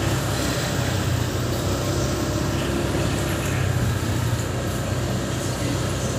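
Motorcycle engine running steadily at low speed while riding, with road and traffic noise around it.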